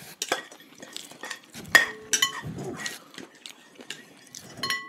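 A spoon scraping and clinking against a large ceramic bowl as the last of the food is scooped out. It makes a string of irregular clinks, several with a short ring.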